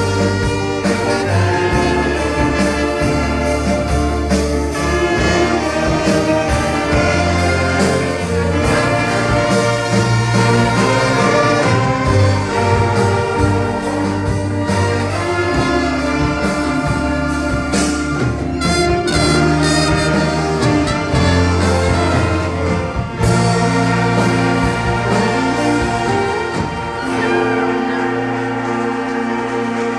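A church orchestra playing, with brass instruments prominent over a moving bass line. The music eases slightly in the last few seconds.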